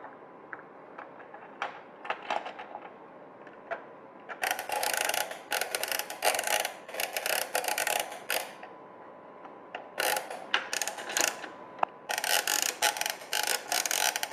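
Plastic toy playset with toy cars clattering and ratcheting: scattered light clicks at first, then dense rattling runs lasting a few seconds each, starting about four seconds in, around ten seconds in and again near the end.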